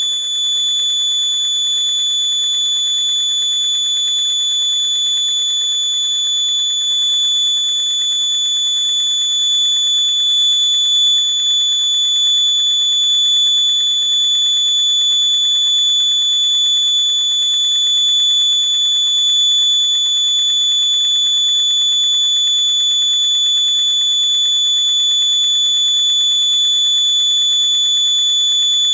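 Electronic buzzer sounding one continuous high-pitched tone, unchanging throughout, with a faint low hum beneath it.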